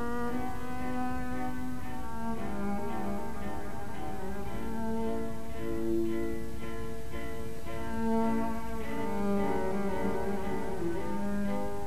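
Slow instrumental music on bowed strings, with low cello-like notes each held for a second or two.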